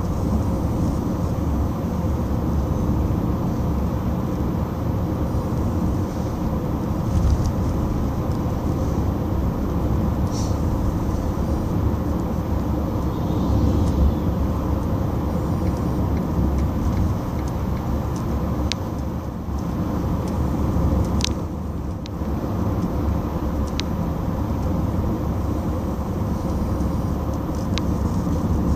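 Steady low rumble of a car's engine and tyre noise heard from inside the cabin while driving, with a few faint clicks now and then.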